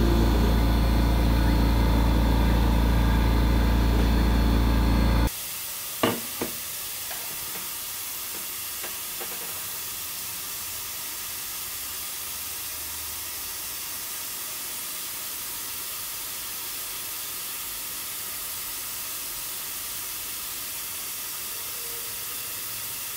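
A loud steady sound with several held tones cuts off abruptly about five seconds in, leaving a steady, fainter hiss for the rest. Just after the cut come two sharp clicks as the finished aluminium housing is handled.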